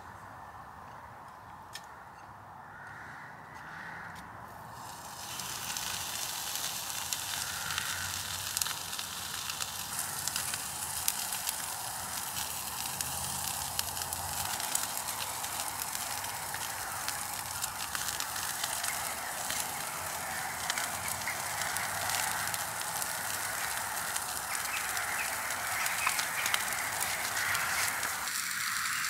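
Lamb steaks sizzling on the grill of a small wood-burning bushbox stove, with the fire crackling under them. The sizzle starts about five seconds in and stays steady, with many small crackles and pops.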